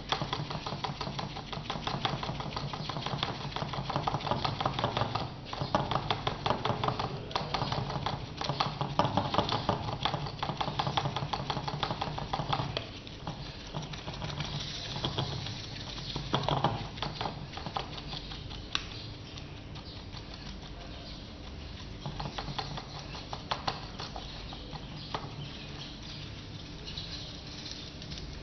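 A paintbrush dabs resin into fibreglass chopped-strand mat, making a rapid, wet patter of short taps as the last layer of a fibreglass mould is wetted out. The dabbing is busy at first and grows lighter after about twelve seconds.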